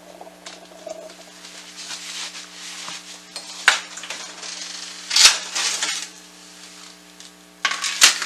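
Oven door opened and a metal baking sheet slid out across the oven rack: scattered clicks and knocks, then a louder run of metal clattering near the end. A steady low hum runs underneath.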